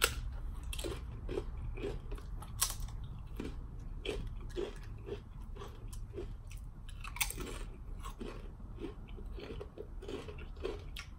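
Tortilla chips being bitten and chewed close to the microphone: a sharp crunch as a chip is bitten off at the start, a few more loud crunches, and steady crunchy chewing at about two to three chews a second in between.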